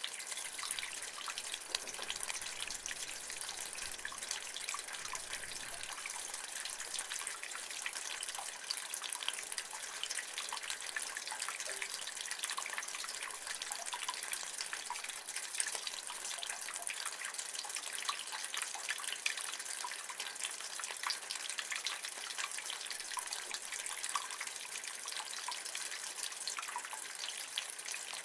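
Rainwater running and dripping from a roof gutter: a steady splashing hiss with many small, quick drips falling through it.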